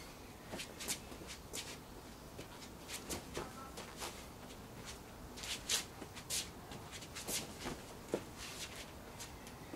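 Irregular scuffs and shuffles of trainers on stone patio paving, with rustling clothing, as a man steps and pivots through practice strikes with a short bat.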